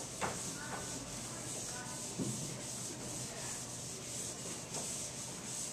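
A dry-erase eraser rubbed back and forth across a whiteboard in repeated strokes, wiping the board clean.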